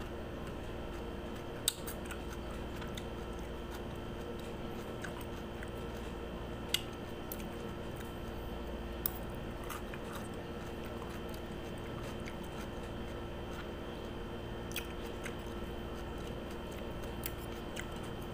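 Chewing of crunchy raw cucumber slices, with a few sharp clicks of a metal fork against the plate, over a steady hum.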